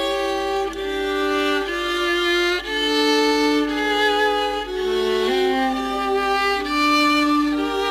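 A small ensemble of violins playing slow classical chamber music, several held notes sounding together and moving to new chords about once a second.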